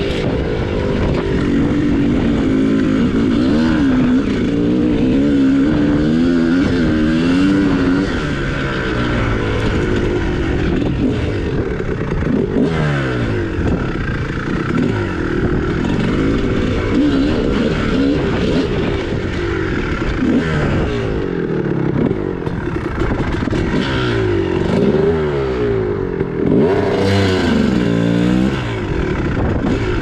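Single-cylinder two-stroke dirt bike engine of a 2001 Kawasaki KX250 being ridden on a trail, its pitch rising and falling again and again as the throttle is opened and closed through the gears.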